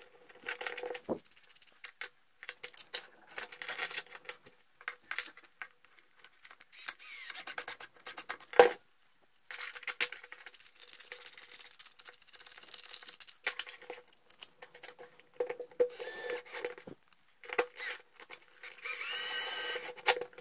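Hard plastic 3D-printed clamp parts, screws and a threaded rod are handled and fitted together, giving scattered clicks, taps and light scraping. Near the end a cordless drill-driver runs with a rising whine as it drives in a screw, after a shorter run a few seconds before.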